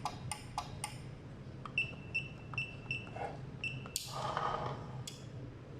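Garage door keypad being keyed: a few sharp button clicks, then five short high beeps as the PIN digits and the enter key are pressed. About four seconds in comes a noisy rush lasting about a second.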